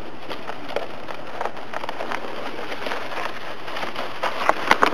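Plastic saucer sled hissing and scraping steadily over snow as it slides downhill, with scattered crunching clicks that get louder near the end.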